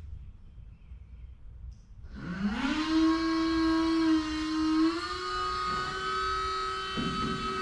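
Scissor lift's electric hydraulic pump motor running as the platform raises: a steady whine that starts about two seconds in, rises quickly in pitch, then holds, stepping slightly higher about halfway through.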